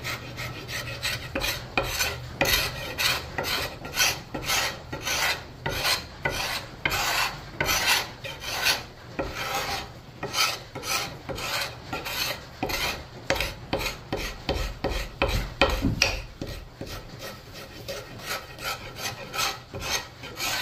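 A flat piece of steel with a square 90-degree edge scraping the factory varnish off a wooden axe handle, in quick repeated rasping strokes about two a second.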